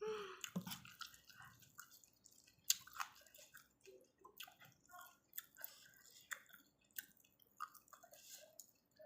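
Someone chewing a mouthful of noodle soup, with irregular short wet mouth clicks and smacks.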